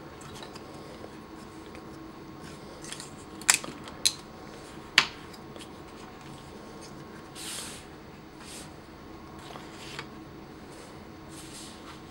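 Plastic transforming-robot toy figure being handled and posed: three sharp clicks of its plastic parts a few seconds in, then soft rubbing and brushing of hands on the plastic.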